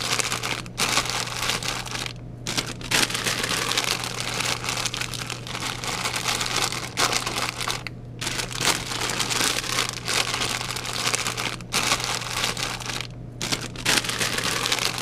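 Continuous crinkling and rustling from something being handled, with a few brief pauses, over a steady low hum.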